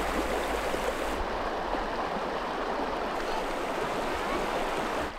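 River water flowing, a steady rushing wash.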